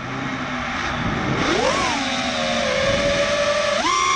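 An ImpulseRC Alien 5 FPV freestyle quadcopter's brushless motors and propellers whining, the pitch following the throttle: low at first, a quick rise and fall about a second and a half in, then a sharp jump to a high held whine near the end.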